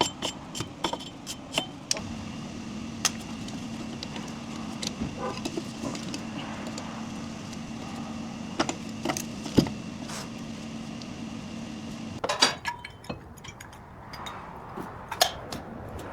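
Scattered metallic clicks and clinks of tools and brake parts being handled, over a steady low hum; the hum stops about twelve seconds in and the clinks carry on.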